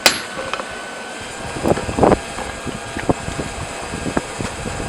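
One last sharp hammer blow on the hot railroad spike, ringing briefly. Then a steady fan-like whirring with a few soft knocks, the hammering paused.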